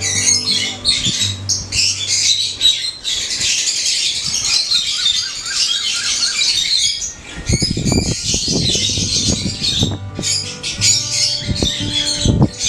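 A flock of pet lovebirds chattering and squawking continuously in shrill, rapid calls. Several low rustling thumps come about halfway through and again near the end.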